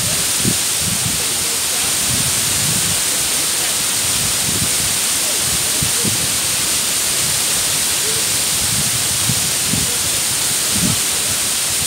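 Mumlava waterfall pouring into its plunge pool: a steady, constant rush of falling water.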